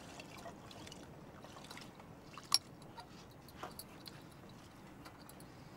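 Dry rice being poured into a cooking pot, a faint, even rustle that eases after about two seconds, with one sharp clink about two and a half seconds in.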